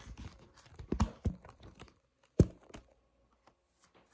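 Handling noise as the camera is adjusted by hand: a few sharp clicks and knocks, the loudest about two and a half seconds in, with faint rustling between them.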